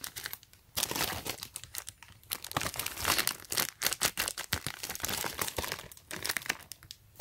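Clear plastic shrink wrap crinkling as the wooden toy train sealed inside it is squeezed and handled, in a run of quick, irregular crackles with a couple of short pauses.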